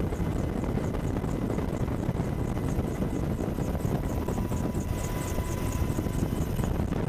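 Apache attack helicopter running, a steady rotor and turbine rumble with a faint regular pulsing of about four to five beats a second.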